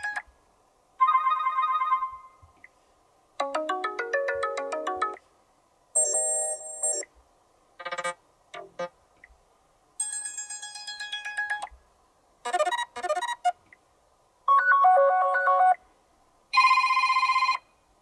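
Sony Xperia 5 III ringtone previews played one after another from the phone's speaker: about eight short electronic melodies, each lasting a second or two and stopping abruptly, with brief silences between them.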